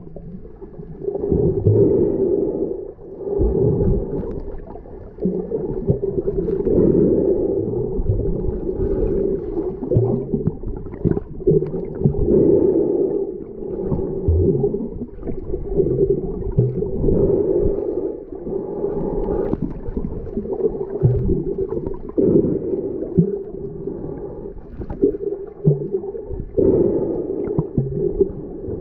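Muffled underwater noise picked up by a camera submerged in its waterproof housing while snorkeling, a dull, low rushing that swells and falls every second or two.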